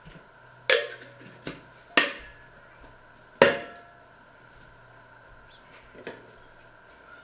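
Kitchenware being handled and set down on a wooden worktop: four sharp clinks and knocks in the first three and a half seconds, the last the loudest, then a couple of lighter taps near the end, over a faint steady hum.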